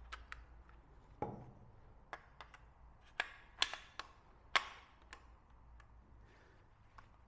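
Parts of a DSS PZD556 machine gun being fitted into the receiver during reassembly: a run of about a dozen sharp metallic clicks and knocks at irregular intervals, the loudest a little past the middle.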